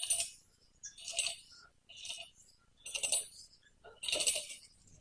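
Repeated metallic clinks and scrapes, about one a second, as the hydraulic cylinder's piston and rod assembly is worked down into the barrel against a tight piston seal.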